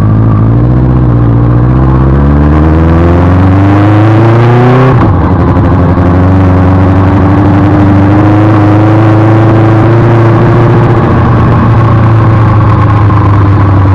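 Benelli TNT600's inline-four engine pulling under acceleration. The pitch climbs for about five seconds, drops sharply at an upshift, then rises slowly again and eases off a little near the end.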